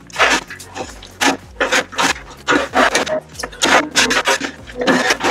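Wood chips being raked and spread across a chicken coop floor with a long-handled tool: a quick run of rough scraping strokes, about two or three a second.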